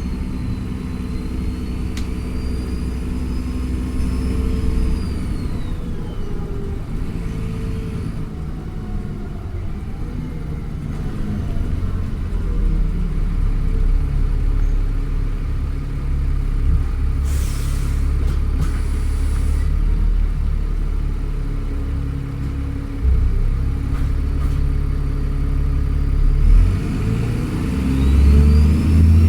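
Alexander Dennis Trident Enviro400 double-decker bus engine working hard under acceleration, with a high turbo whistle that rises and falls in the first few seconds and climbs again near the end. A short hiss comes about two-thirds of the way through.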